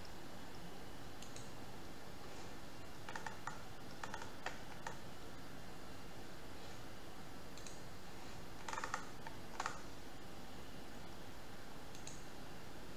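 Clicks of a computer mouse and keyboard over a steady hiss. They come singly and in two small flurries, about three to five seconds in and again about nine seconds in.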